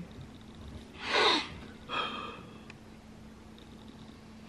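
A man's distressed breathing with his hands over his face: a sharp, heavy breath about a second in, then a second shorter, shakier breath about a second later.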